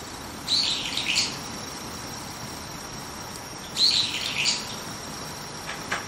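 Brown-eared bulbul calling: two calls about three seconds apart, each under a second long and made of a few quick notes that rise and fall in pitch.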